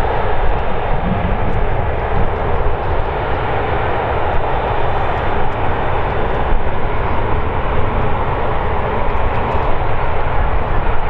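Airbus A350 airliner's Rolls-Royce Trent XWB jet engines running steadily at taxi power as the aircraft rolls past, an even rumbling whoosh that holds at one level throughout.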